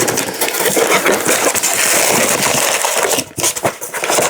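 Product packaging being handled close to a microphone: a dense, loud rustling and crackling with many small clicks, pausing briefly about three seconds in.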